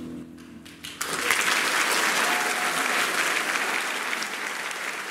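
The music's last held chord dies away, and about a second in an audience breaks into applause that swells quickly and then slowly tapers off.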